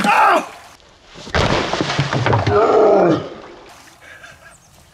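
A man's wordless vocal exclamations: a short one at the start, then a longer, louder groan about a second and a half in, fading out before the end.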